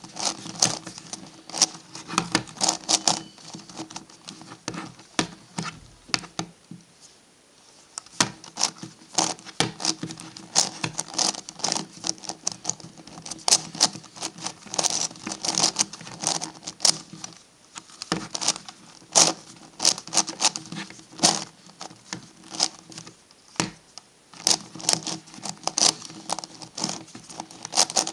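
MF8 Gigaminx twisty puzzle being turned by hand: quick runs of plastic layers clicking and clacking as they turn, with a quieter lull about four to eight seconds in.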